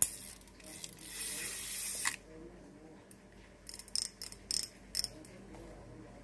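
Small Daiwa size-1000 spinning reel being worked by hand: a click, then about a second and a half of smooth, quiet whirring as it is cranked, ending in a click, then a quick run of sharp mechanical clicks about four to five seconds in.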